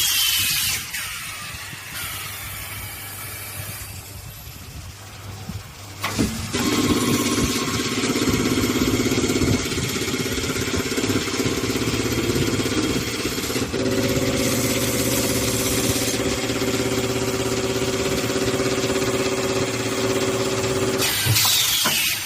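Automatic sieve-welding machine running a cycle: a short hiss of air with a falling whistle at the start, then from about six seconds in a steady, loud humming buzz over a hiss for some fifteen seconds, which stops near the end with another hiss of air and falling whistle.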